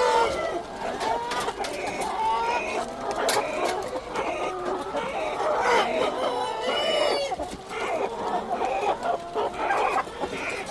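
A large flock of chickens in a poultry house clucking and calling over one another in a dense, continuous chorus of short overlapping calls.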